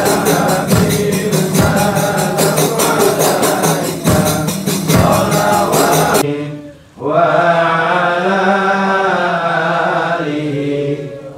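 A group of voices singing together over a fast, steady beat of tambourine-like percussion. About six seconds in, the percussion cuts off, and after a brief drop a crowd chants on unaccompanied.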